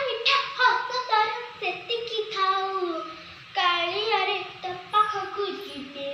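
A young girl singing a song unaccompanied, in held, gliding notes.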